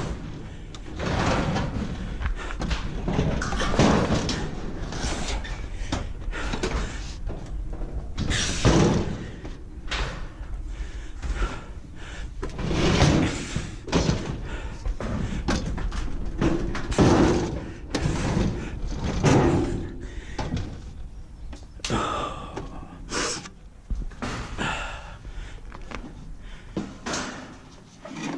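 A series of bangs and thuds, a heavy knock every few seconds, over a steady low rumble, with a short ringing tone about 22 seconds in.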